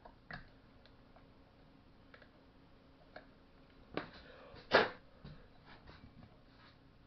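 Hand tools and parts being handled during a chainsaw repair: scattered light clicks, then two sharper knocks about four and five seconds in, the second the loudest.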